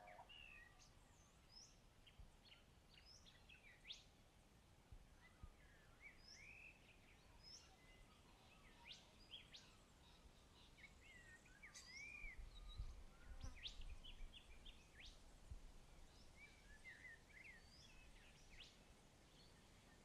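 Faint birdsong: many short chirps and whistled calls from several birds, scattered throughout. A soft low rumble rises and falls across the middle.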